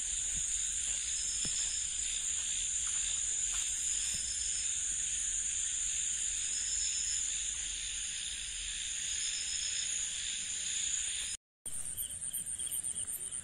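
Night-time insect chorus: a steady, high-pitched shrill of many calling insects. It cuts out for a moment near the end, then comes back as a faster, pulsing chorus.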